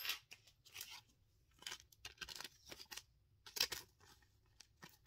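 A trading card being slid into a clear plastic penny sleeve: a series of short, soft, scratchy plastic rustles and scrapes, the loudest about three and a half seconds in.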